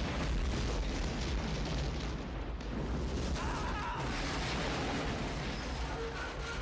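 Action-movie explosions: a continuous din of blasts and fireballs, heaviest in the low end, with no break.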